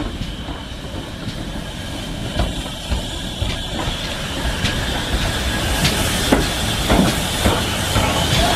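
GWR 5101 class 'Large Prairie' 2-6-2 tank locomotive No. 5199 drawing its train in, growing louder as it nears, with steam hissing and wheels clicking over rail joints more often toward the end.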